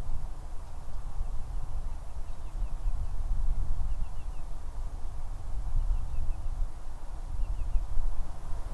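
Wetland ambience: a gusty low rumble of wind on the microphone under a soft murmur of distant waterfowl, with faint high bird chirps in twos and threes every second or two.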